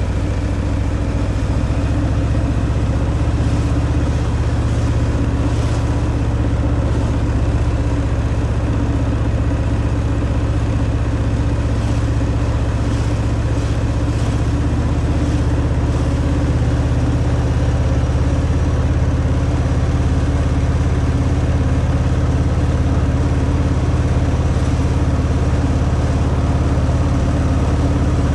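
Harley-Davidson Fat Boy's Milwaukee-Eight 114 V-twin running steadily through its stock exhaust at an even pace, the engine note holding at one pitch.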